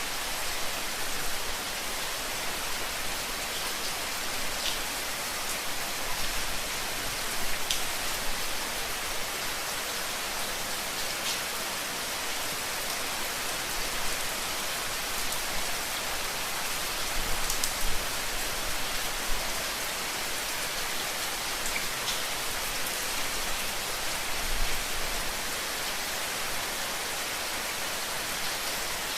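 Steady rain falling on a surface: an even hiss with scattered individual drops ticking.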